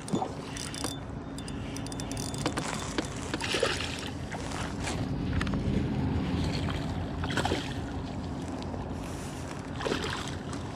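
Handling noise on a fishing kayak as a bass is fought and landed: scattered knocks and clicks of rod, reel and gear against the plastic hull over a steady low rumble of water and wind.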